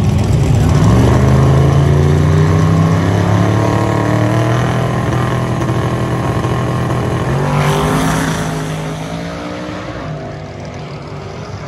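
Two drag-race cars revving at the starting line, their engines held at high revs, then launching about two-thirds of the way in with a louder surge and rising pitch. The sound fades as they run away down the strip.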